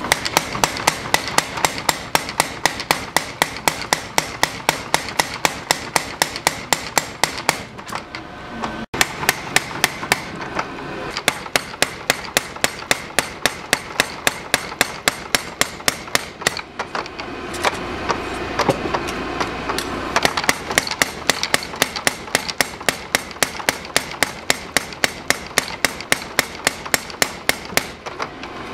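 Mechanical power hammer beating a steel knife blade on its anvil, rapid even blows at about three to four a second, with a short pause about a third of the way in. This is cold hammering at room temperature, which refines the steel's grain and strengthens the blade before tempering.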